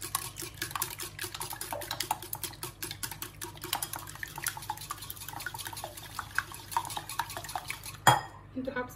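Wire whisk beating eggs in a ceramic bowl: rapid, continuous clinking of the whisk against the bowl, ending with a sharper knock about eight seconds in.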